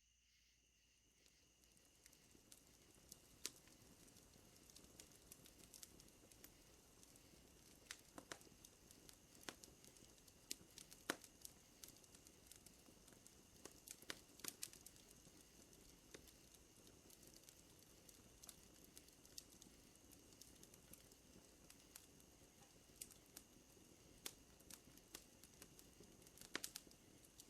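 Wood fire crackling, with irregular sharp pops over a soft hiss that fades in over the first couple of seconds. Two faint, steady high tones, like night insects, run underneath.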